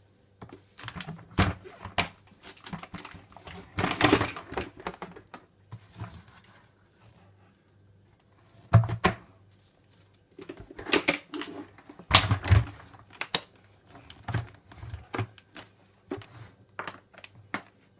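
Irregular knocks, clicks and clatter of hard parts of a vintage Hoover Aquamaster washing machine being handled, in scattered bursts with a busier stretch about four seconds in and again around eleven to thirteen seconds. A faint low hum runs underneath.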